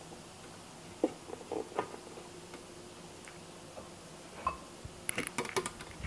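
Scattered light clicks and taps of a metal spoon against a ceramic bowl, a few about a second in and a quick cluster near the end, over a faint steady hum.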